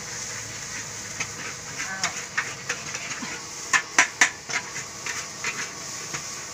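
Metal spatula clanking and scraping against a wok as rice is stir-fried over a gas burner, with a steady sizzling hiss underneath. The clanks come irregularly, the loudest three close together about four seconds in.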